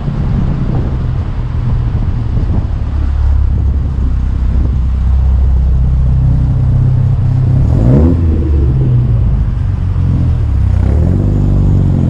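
Car engine running steadily while driving; its note rises briefly twice, about two-thirds of the way through and again near the end, as it revs.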